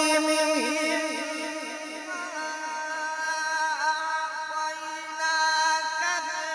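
A man's voice in melodic Quran recitation (tilawat), amplified through a microphone, drawing out long held notes with wavering ornaments. It is a little softer in the middle and swells again near the end.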